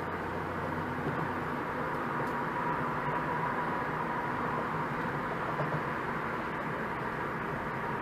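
Steady road and tyre noise with engine hum inside a car cruising at about 40 mph on a freeway, picked up by a dashcam, with a faint steady high whine.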